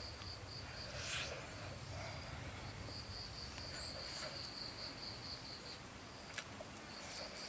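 Outdoor insect trilling on one steady high pitch in a beaded, pulsing line over a low ambient rumble. It breaks off at about six seconds and comes back near the end. A brief rustle about a second in and a single sharp click near the end are the loudest moments.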